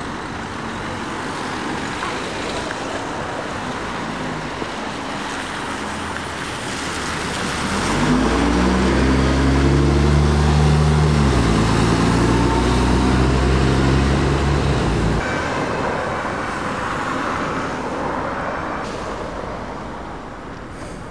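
Street traffic noise, then a diesel double-decker bus drives close past, its engine running loudly with a low, even hum for several seconds. The note dips slightly partway through and cuts off abruptly about two-thirds of the way in, leaving the traffic noise.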